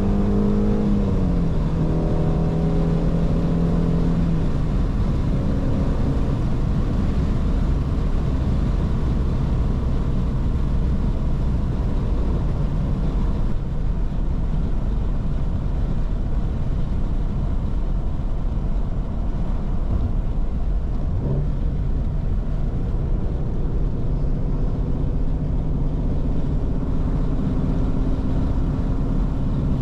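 Shelby GT350's 5.2-litre flat-plane-crank V8 running at a steady cruise, its pitch dropping about a second in. Then a steady low rushing noise takes over, with a brief rise in engine pitch around two-thirds of the way through. The even engine drone comes back near the end.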